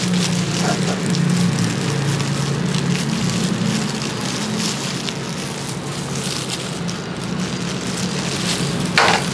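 Crinkling and rustling of thin plastic disposable gloves as wet hair is twisted and wound onto chenille perm rods, over a steady low hum, with a brief louder sound near the end.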